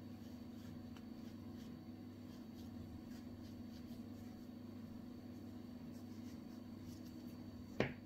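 Faint scratching and rustling of toy stuffing being pushed into a small crocheted piece with a metal tool, over a low steady hum. A single sharp knock near the end.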